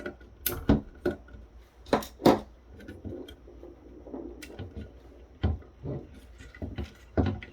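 Irregular clicks and knocks from the opened shipping scale's plastic parts being handled and shifted on a work surface.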